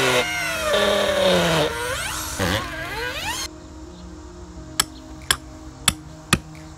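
Corded drill with a long auger bit boring into a wooden railroad tie, its motor whine dropping in pitch as it bogs under load and rising again as it frees up. About a second after it stops, a hammer strikes a rebar pin being driven into the tie, a sharp metallic tap about twice a second.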